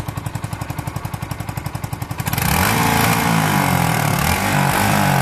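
Yamaha YZF-R125's 125 cc single-cylinder four-stroke engine through its stock exhaust, idling with an even putter of about twelve beats a second. About two seconds in it is revved hard, several times in a row, its pitch rising and falling with each throttle blip.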